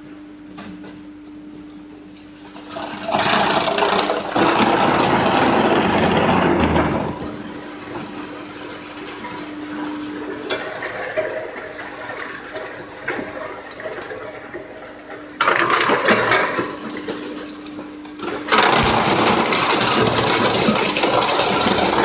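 Drum wood chipper running: a steady hum under a rushing noise that grows loud in three spells, a few seconds in for about four seconds, briefly past the middle, and again near the end.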